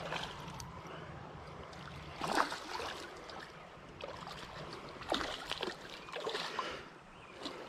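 A hooked smallmouth bass splashing at the surface of a shallow creek as it is reeled in: several separate splashes, the loudest about two seconds in, over the steady wash of the creek.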